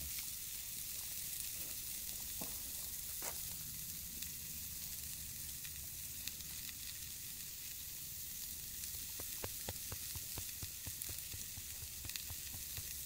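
Burger patties sizzling on a steel grill plate over a wood fire: a steady frying hiss with scattered small pops and crackles.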